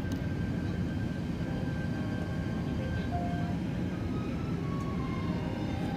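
Steady low rumble of engines and airflow heard inside the cabin of an Airbus A380 airliner in flight, from a window seat over the wing; its engines are Rolls-Royce Trent 900 turbofans.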